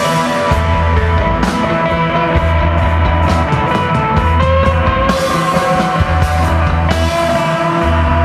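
Live instrumental psychedelic desert rock from a guitar, bass and drums trio: electric guitar lines over bass notes held for a second or more at a time, with steady drum and cymbal hits.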